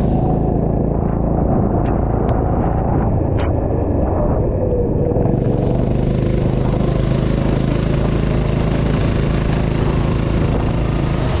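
Go-kart engine running under the driver, with the kart on a wet track. A high rushing hiss drops away about half a second in and returns about five seconds in, and a few light clicks sound in the quieter stretch.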